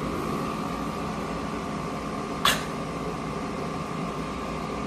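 Window air conditioner running: a steady fan whir with a constant hum-like tone, and a single sharp click about halfway through.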